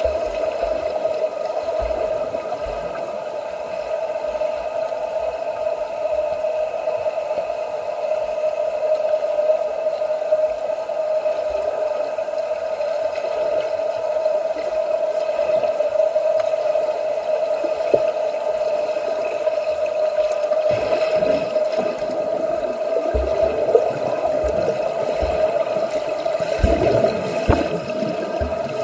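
Swimming-pool water sloshing and splashing from swimmers doing laps, over a steady hum.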